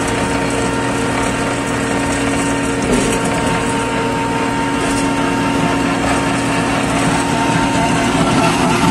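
Cold milling machine running steadily while cutting the asphalt road surface: a constant diesel engine drone with a steady tone over the grinding noise of the milling drum.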